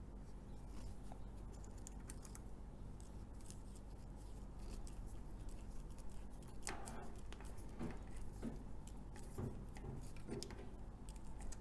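Small screw being driven by hand with a precision screwdriver through an alligator clip into the plastic end of a flexible tripod leg: faint scraping and ticking, with several sharper clicks in the second half.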